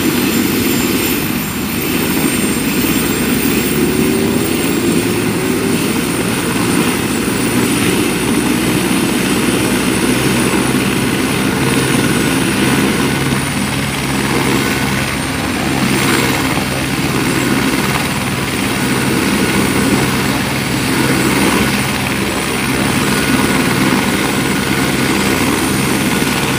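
Helicopter running on the ground before takeoff: the steady noise of the turbine engine and turning main rotor, with a steady high whine above it.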